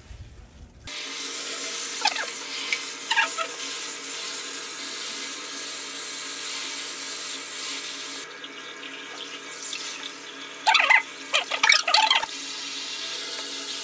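Handheld shower head spraying a steady stream of water into a basin of napa cabbage while hands rinse the leaves, a stage in making kimchi. The spray starts about a second in, with a few brief louder noises about two seconds and eleven seconds in.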